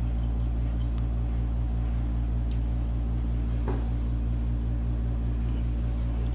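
A steady low hum that does not change, with a faint brief sound about three and a half seconds in.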